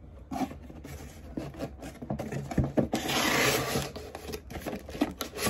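Cardboard packaging being handled: flaps and an insert knocking and sliding against each other, with a longer scraping rub of cardboard about three seconds in and a sharp knock near the end.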